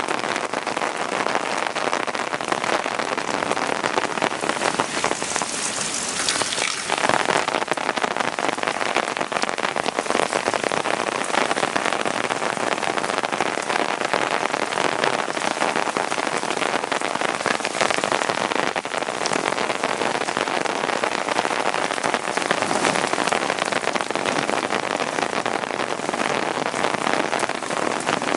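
Heavy rain falling steadily in a storm, a dense patter of drops, swelling louder for a moment about five to seven seconds in.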